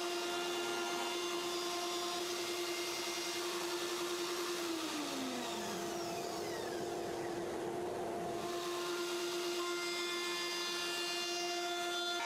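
Table-mounted router with a top-bearing flush-trim bit, running and routing the edge of a wooden tray. It gives a steady motor whine that dips in pitch for about a second, about five seconds in.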